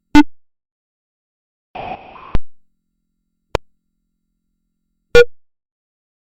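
A sequence of short synthesized blips and clicks, each sharp and quickly decaying, separated by dead silence. About two seconds in, a brief noisy buzz ends in a further click.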